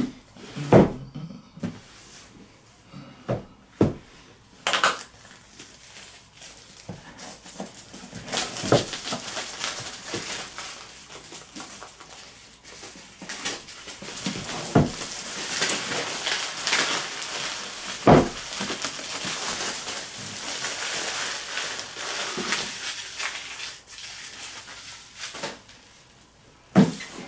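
Plastic shrink-wrap being torn and peeled off a cardboard box, crinkling for a long stretch through the middle, with scattered knocks and thuds of the box being handled on the desk.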